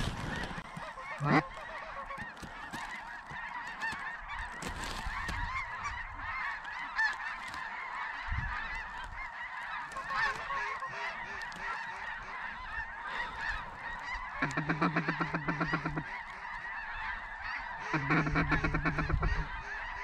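Large flocks of geese calling overhead, a dense, continuous chorus of many overlapping calls. About two-thirds of the way through, and again near the end, a louder, rapidly pulsing call stands out for a second or two.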